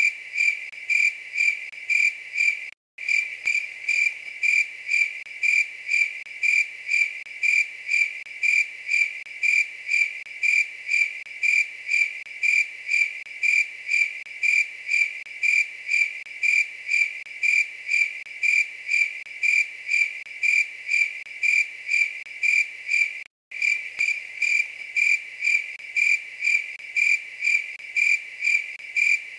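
A night-singing insect chirping in a steady, even rhythm of clear high-pitched chirps, about two a second. The sound cuts out for a split second twice.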